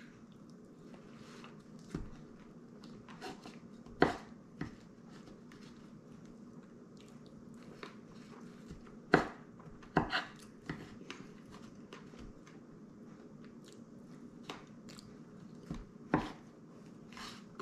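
A person eating berry pie with a fork: scattered sharp clicks and taps of the fork against the pie tin, with quiet chewing in between, over a faint steady hum.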